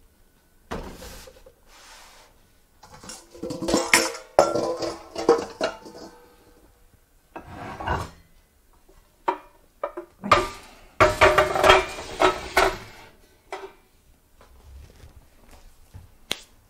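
Kitchenware being handled: dishes and bowls knocking and clinking together as they are moved about on a shelf. The knocks come in two busy spells, one a few seconds in and one past the middle, with short ringing after some of them, and a few single clicks between.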